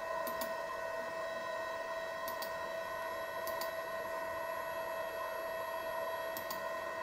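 Steady hum of running equipment, several fixed tones held without change, with four faint double clicks spread through it.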